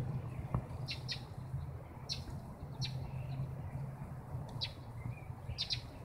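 Short, high chirps called here and there by a large flock of birds on the ground, over a low steady rumble.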